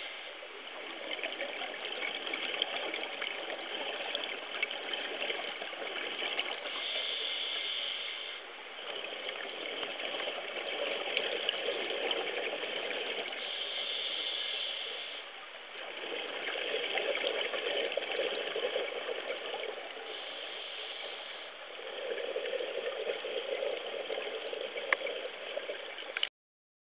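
Scuba diver breathing underwater through a regulator: a hiss on each inhale, then a louder rush of exhaled bubbles, repeating every six or seven seconds. It cuts off suddenly near the end.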